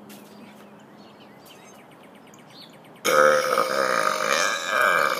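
A man's deliberate burp: a long, loud belch with a fairly steady pitch, starting suddenly about three seconds in after a quiet stretch.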